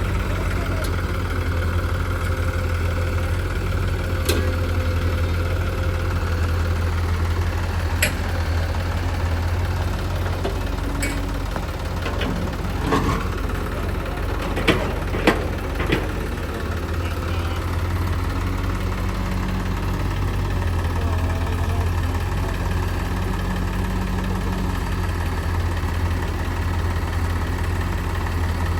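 Diesel engine of earthmoving or tractor machinery running steadily at a low, even idle, with a heavy low hum. Several sharp metallic knocks cut through, the loudest two close together about halfway through.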